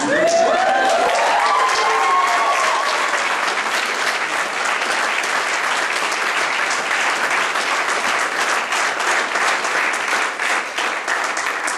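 Audience applauding steadily, with a few voices whooping and cheering in the first couple of seconds.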